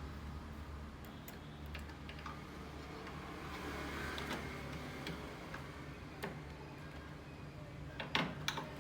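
A steady low hum with scattered light clicks and ticks, and a quick run of louder clicks near the end.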